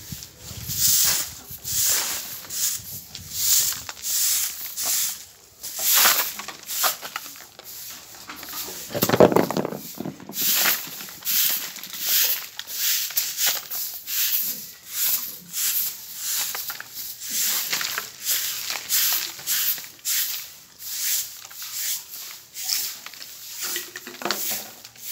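A stiff bundled-fibre hand broom sweeping concrete pavement in quick, rhythmic scraping strokes, about one or two a second. There is one louder, lower sound about nine seconds in.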